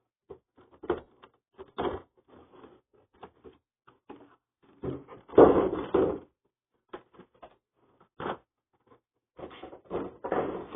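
Packaging being handled during a toy figure unboxing: scattered clicks and knocks, with a louder stretch of rustling or scraping about five to six seconds in.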